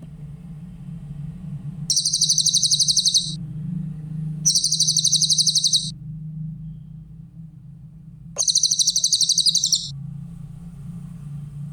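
Cililin bird singing: three loud, high, fast trills of rapidly repeated notes, each about a second and a half long, with pauses between them. A steady low hum runs underneath.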